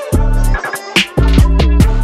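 Hip hop beat played loud through an arena concert sound system: long, deep bass notes that slide down in pitch, cut by sharp drum hits.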